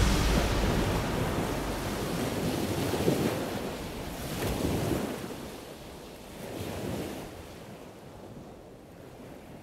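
Ocean waves washing, with wind, coming in a few swells and fading out gradually.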